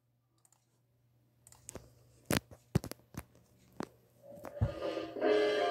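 Several sharp clicks and knocks, one of them a low thump, over a faint steady hum; then, about five seconds in, music starts playing from the alphabet video on the computer.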